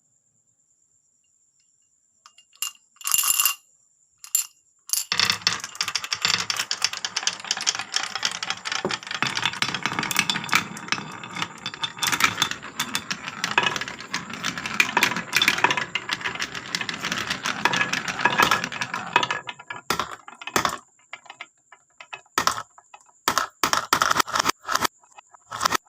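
Many marbles rolling and clacking down a wooden marble run. A few single clicks come first, then a dense clatter of clicks for about fifteen seconds, which thins to scattered clicks near the end.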